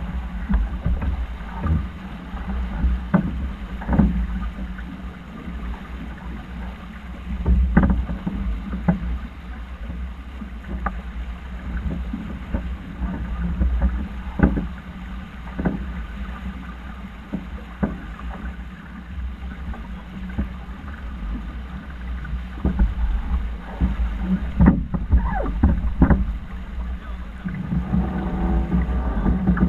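Wind buffeting the microphone aboard a sailing yacht under way, with water washing along the hull and scattered sharp knocks and slaps, a cluster of them about 25 seconds in.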